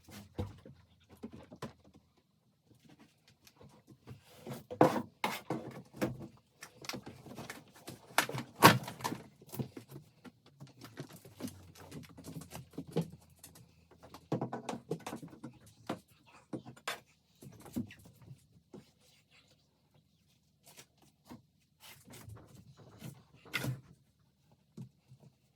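Irregular knocks, taps and clatter, the loudest a few sharp knocks about five and nine seconds in, over a faint low hum.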